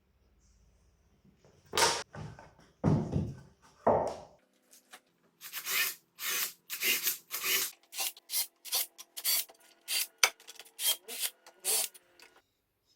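A hand tool rubbing and scraping across a wooden board in repeated strokes: three heavier, slower strokes, then a quicker run of about two strokes a second.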